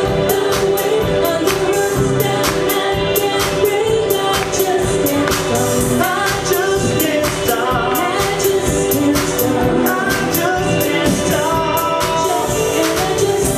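Live band music with a steady beat about twice a second and singing over it.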